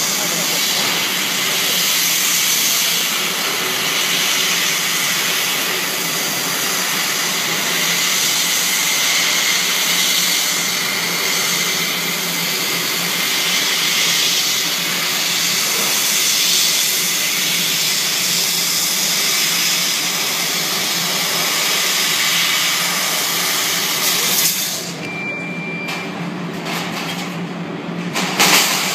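CNC laser cutter cutting stainless steel: a steady loud hiss of gas at the cutting head over a low machine hum, which drops away about 24 seconds in. A short steady high tone follows, then a brief burst of noise near the end.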